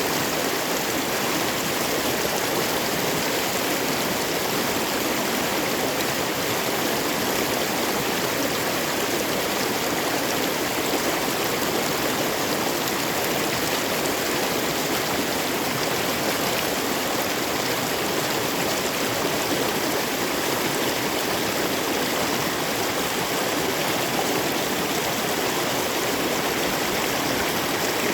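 Glacier-fed mountain torrent flowing steadily: a constant, even rush of water with no breaks.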